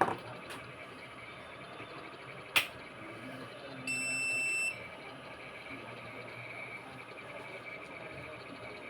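A single high electronic beep, steady in pitch and just under a second long, about four seconds in, preceded by two sharp clicks.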